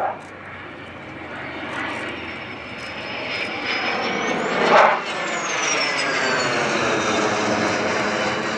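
Single-engine F-16 fighter jet flying a display pass. Its engine noise builds to a high whine that rises to the loudest moment about halfway through, then falls in pitch as the jet passes over, and the jet noise carries on steadily after.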